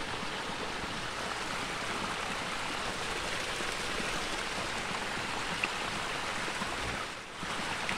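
Steady rushing trickle of a small muddy creek flowing over rocks, dipping briefly about seven seconds in.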